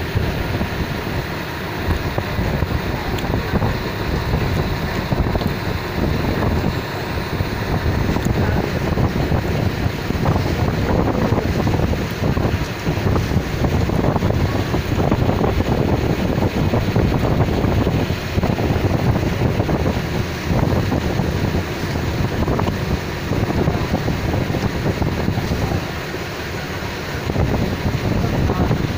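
Wind buffeting a mobile phone's microphone over choppy river water: a loud, rushing noise that gusts up and down, with no steady engine tone standing out.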